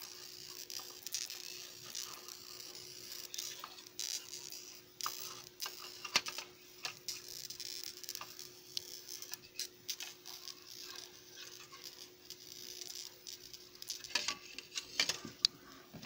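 Faint irregular crackling and clicking over a steady hum, as high-voltage current from a negative ion generator pops through a circuit board.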